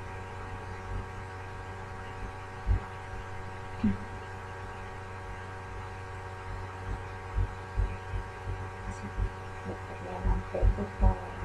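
A steady electrical hum, broken by a few short dull knocks, with a faint voice near the end.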